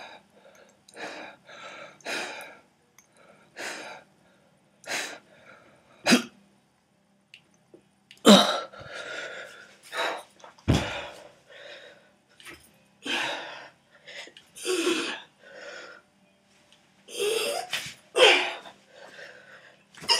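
A young man's short, forceful breaths and grunts of effort, coming in irregular bursts every second or so, some sharp and hissy, some voiced. A deeper thump sounds about halfway through.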